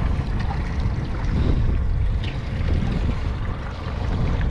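Wind buffeting the microphone with a steady low rumble, over water moving against a small boat.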